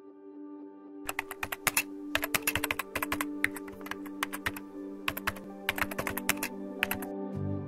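Typing sound effect: clusters of rapid keyboard clicks from about a second in until shortly before the end, over soft ambient music with held tones. A low bass note enters in the music near the end.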